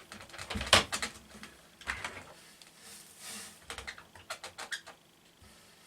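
Light clicks and knocks from a small cordless coffee maker being handled, with a short rustle near the middle and a quick run of clicks after it. The loudest knock comes just under a second in.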